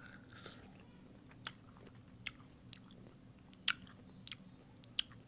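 A juicy pickle being chewed close to the microphone, with wet, crisp smacking clicks at irregular intervals, about one a second. A faint steady low hum runs underneath.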